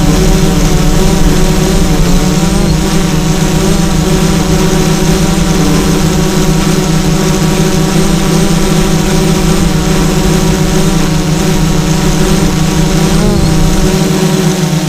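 Motors of a remote-controlled FPV craft running steadily, picked up close by the onboard recording. The motors give a loud, even hum with a stack of tones that wavers slightly in pitch now and then, as with small throttle changes.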